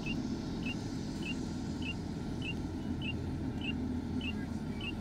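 Steady engine and road rumble heard inside a car's cabin as it drives slowly in traffic, with a faint high-pitched beep repeating evenly, a little under twice a second.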